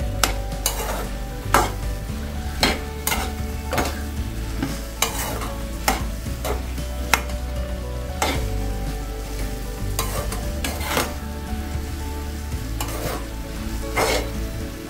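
Steel spoon stirring chopped vegetables in a metal kadai, with irregular scrapes and knocks against the pan over a steady sizzle of frying.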